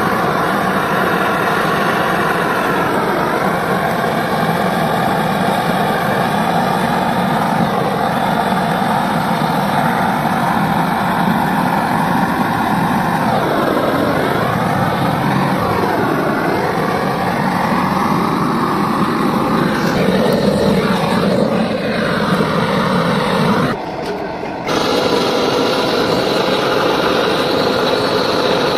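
Gas soldering torch burning with a steady hiss as its flame is played along the header seam of a truck radiator, soldering the joint. The tone of the hiss sweeps up and down for a few seconds midway as the flame moves, and the sound dips briefly near the end.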